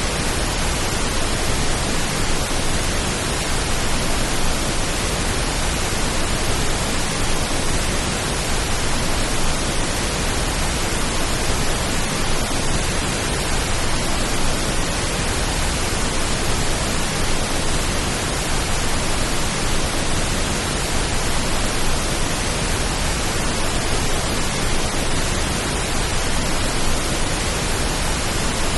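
Steady pink noise: an even, unchanging hiss.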